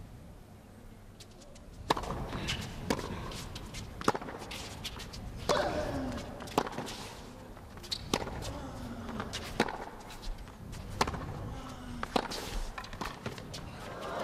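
A tennis rally on a hard court: the serve and then the ball cracking off the racquets about once every second and a half. A player gives a short grunt that falls in pitch with some of the shots.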